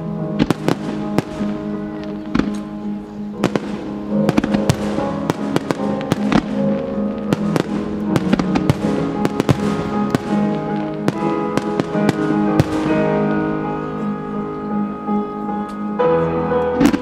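Aerial fireworks bursting and crackling over music, with many sharp cracks in quick succession that thin out past the middle.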